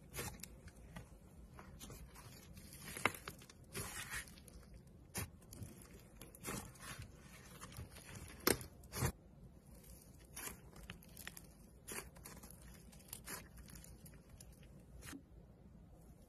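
Thick fluffy slime being stretched, folded and pressed by hand, giving off irregular small crackles, pops and squelches, with a few louder snaps about three seconds in and again about eight and a half seconds in.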